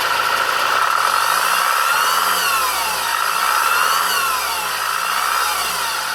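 Honda Accord 2.2 i-CTDi four-cylinder diesel engine revved up and back down about twice, with a whine that rises and falls with engine speed over a steady high whine. The whine appeared after the engine's chains were replaced.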